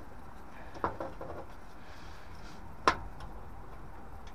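Light handling noises inside the boiler casing: a small click about a second in and a sharper, louder click a little before three seconds, over a faint steady low background.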